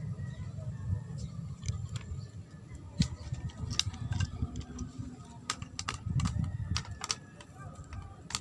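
Handling noise on a hand-held phone's microphone: a steady low rumble with a scattering of sharp clicks and taps, more of them after about three seconds.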